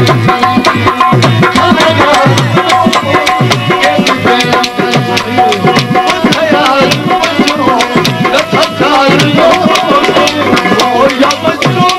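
Live Sindhi folk music: a dholak drum keeps a fast, steady beat, with bass strokes that drop in pitch, under sustained melodic notes.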